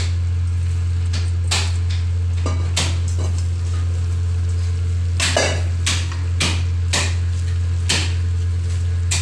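A steady low hum, with about ten scattered knocks and clicks from kitchen handling.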